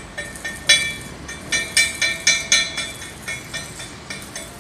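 Metal tool tapping on steel: a quick run of sharp, ringing metallic strikes, about four a second, each ringing at the same pitches, with a couple of short pauses.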